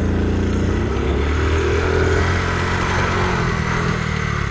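Honda C90's small single-cylinder four-stroke engine running steadily while the motorcycle rides along. The engine note eases off near the end as it slows.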